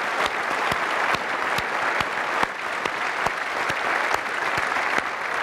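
Audience applauding: steady clapping from many hands, with sharp individual claps standing out.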